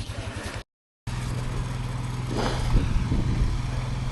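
ATV engine running: a pulsing idle that breaks off sharply, then a steadier drone that briefly rises in the middle.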